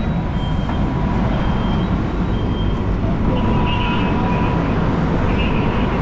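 Fire truck's diesel engine running with a steady low rumble, while its reversing alarm beeps about once a second, then stops about three seconds in.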